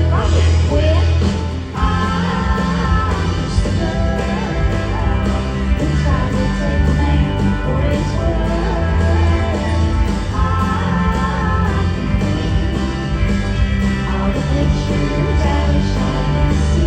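Live country-rock band playing through a concert sound system, with a lead singer's vocal over electric guitar, heavy bass and drums keeping a steady beat.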